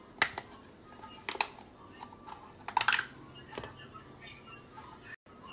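Three sharp clicks or taps of handling, roughly a second apart, over quiet room tone; the sound cuts out for an instant near the end.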